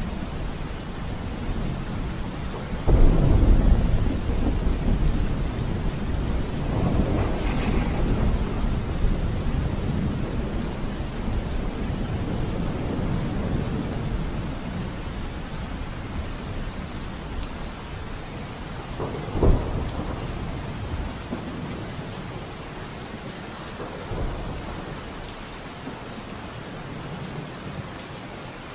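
Steady rain with rolling thunder: a loud low rumble about three seconds in, further rolls around eight seconds, a sharper clap near twenty seconds and a softer one a few seconds later.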